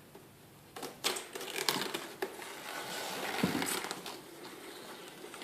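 Cardboard box and packaging being handled and opened: irregular rustling and scraping with a few sharp knocks, starting about a second in.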